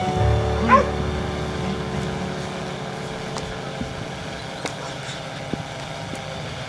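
A working dog gives one short, rising bark about a second in, over a faint steady hum.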